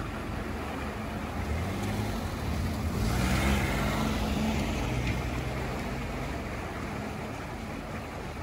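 A road vehicle passing by, its noise swelling to a peak about three to four seconds in and then fading away.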